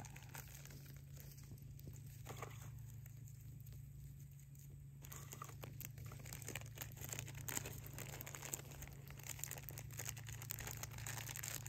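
Hands tearing and crumpling a small bundle of dry material, with a few soft rustles early on and a dense run of fine crackly tearing sounds from about five seconds in, over a steady low hum.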